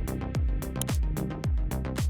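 Electronic dance music with a steady four-on-the-floor kick drum, about two beats a second, and hi-hats between the beats.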